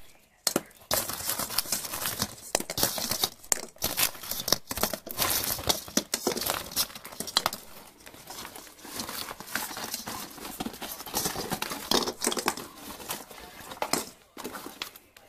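Clear plastic packaging crinkling and rustling as it is handled, with many small irregular crackles and clicks, while Christmas baubles are taken out of it.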